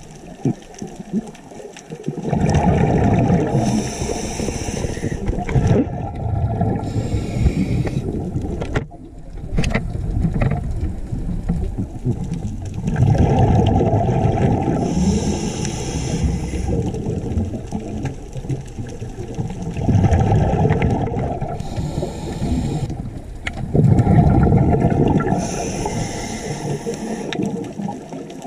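Scuba diver breathing through a regulator underwater: long bursts of bubbling exhaled air every several seconds, with quieter hissing inhalations between them.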